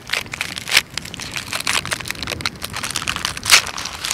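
Plastic snack-pie wrapper crinkling and crackling close to the microphone in irregular bursts, loudest about a second in and again near the end.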